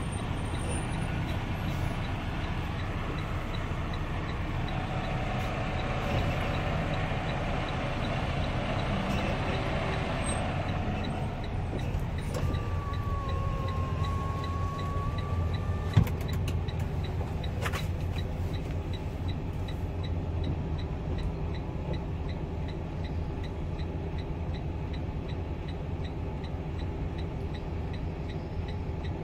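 Steady low rumble of a semi truck's diesel engine heard from inside the cab. A faint held tone lasts a few seconds about halfway through, followed by a single sharp click.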